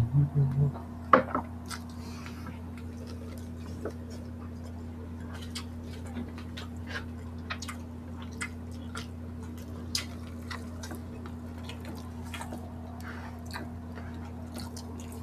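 Close-miked eating sounds: scattered small wet clicks and smacks from chewing and from fingers working sticky rice and grilled pork, over a steady low hum. Near the start come a few short low sounds and a sharper click about a second in.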